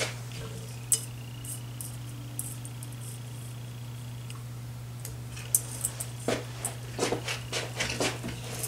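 Small metal pull chains and chain extenders clinking and clicking as they are handled and attached, a few isolated clicks and then a busy run of light clinks in the second half, over a steady low hum.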